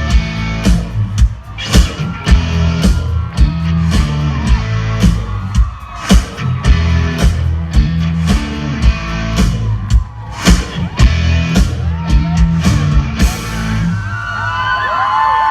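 Live band playing country-rock with a heavy drum beat and bass, singing under it. About thirteen seconds in the music stops and the crowd cheers and screams.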